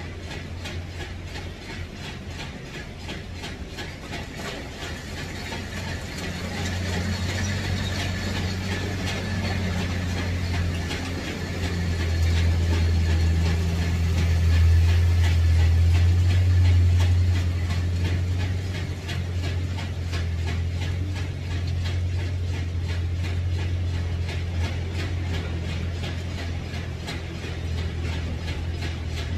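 A machine running steadily: a low hum with rapid, even ticking, growing louder about six seconds in and easing off after about eighteen seconds.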